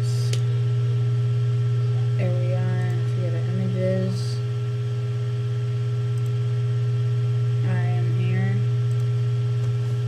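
Steady loud low hum, with a faint voice heard briefly twice.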